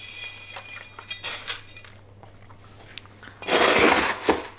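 Small pumice grit clinking and rattling as a metal scoop pours it and digs into it. About three and a half seconds in, a hand-pump pressure sprayer hisses for about a second, misting the dusty pumice to damp down the dust.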